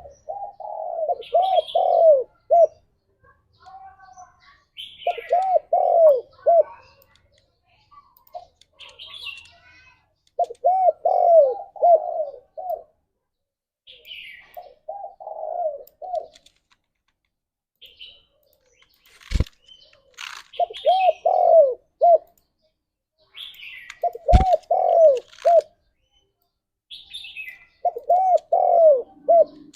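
Spotted dove cooing: about seven phrases, each a quick run of several short rising-and-falling coos, repeated every few seconds. Fainter, higher chirps of small birds come between the phrases, and two sharp clicks come in the second half.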